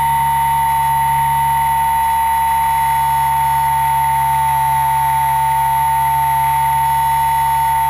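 Steady high-pitched whine of an RC aircraft's motor and propeller, picked up by the camera on board, holding one pitch with no change in throttle.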